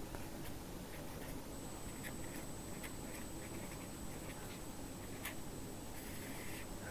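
Pen writing a word on paper: faint short scratching strokes, with a longer stroke near the end.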